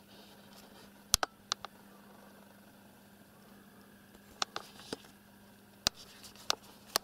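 Quiet sharp clicks and taps, about ten in three small clusters, over a faint steady hum.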